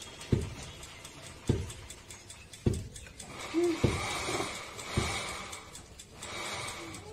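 Five soft thuds about a second apart as a round steel sieve of freshly ground rice flour is tapped and shaken to sift the flour.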